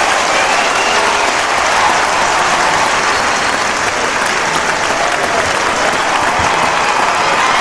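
Crowd applauding and cheering: dense, steady clapping with voices calling out through it.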